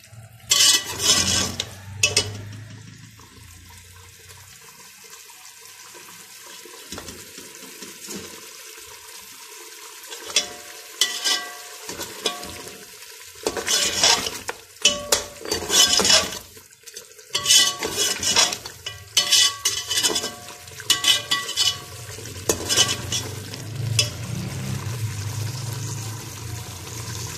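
A metal spatula stirring and scraping mutton and masala around a pressure cooker pot, in several runs of quick strokes with pauses between, over a low sizzle of frying. This is the masala being bhuna-fried on a high flame.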